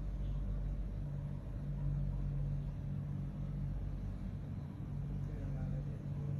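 A steady low rumble with a constant low hum.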